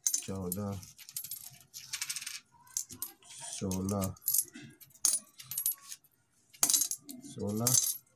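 Metal rupee coins clinking and tapping on a concrete floor as they are picked up and sorted by hand, a scattered series of sharp clicks, with three short vocal sounds in between.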